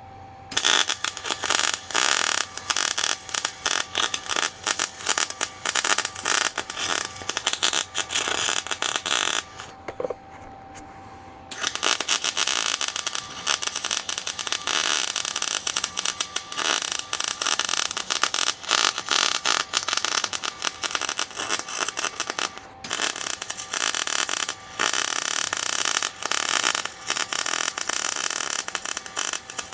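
MIG welder arc crackling steadily while beads are laid onto a worn vise screw to build it up. The arc stops for about two seconds around a third of the way in, then runs again, with another very short break about three-quarters through.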